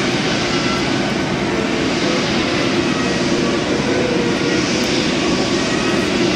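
Boeing 747-8F freighter's four GEnx-2B turbofans running at taxi power: a steady, loud jet engine noise that doesn't rise or fall.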